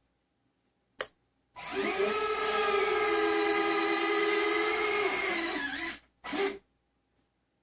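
Electric retract actuators of an RC Comanche helicopter's landing gear running as the gear cycles. A click about a second in is followed by a steady motor whine for about four seconds, which sags in pitch as it stops, then a brief whir.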